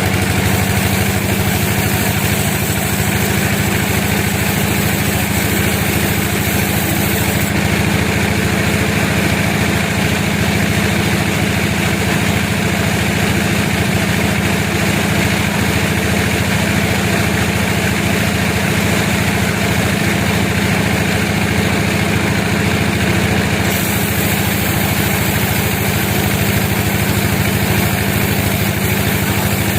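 Sawmill machinery running steadily with an engine-like hum and no breaks; the high hiss shifts about a quarter of the way in and shifts back near the end.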